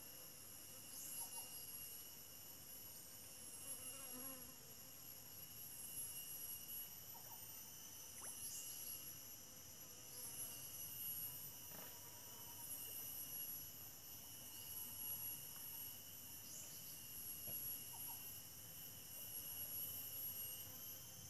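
Faint, steady chorus of insects such as crickets or cicadas: several high, shrill tones that never break, with a short chirp every few seconds.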